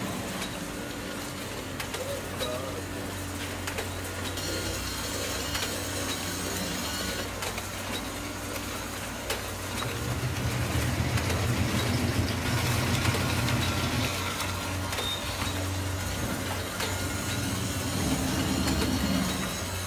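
Small electric motors of toy conveyor belts humming steadily, with sand and small rock lumps sliding and rattling down the belts and chutes. It grows louder and rougher about ten seconds in as lumps of rock tumble down a chute into a bucket, and again near the end as sand pours out.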